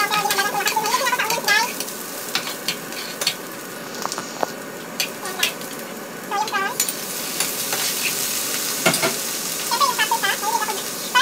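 Sliced onion frying and sizzling in a hot non-stick pan while a spatula stirs it, scraping and tapping against the pan. The sizzle grows louder in the second half.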